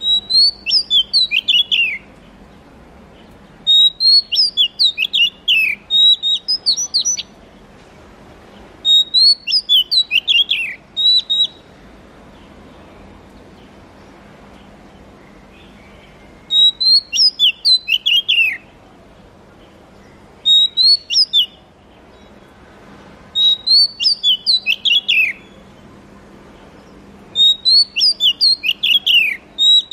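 Male oriental magpie-robin (kacer) singing: phrases of clear, high whistled notes, many slurring downward, each lasting a second or two and repeated several seconds apart, with a longer pause about midway.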